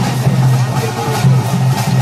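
Loud drum-led music with regular drum strokes over a steady low tone.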